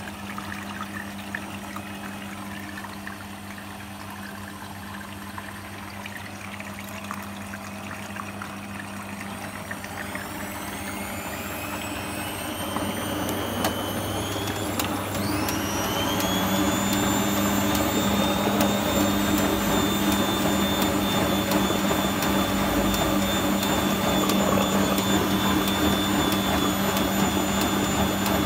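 Arçelik 4120 S front-loading washing machine's drum motor starting a spin: a steady hum, then from about ten seconds in a whine that rises in pitch and grows louder, levelling off into a steady high whine as the drum reaches spin speed.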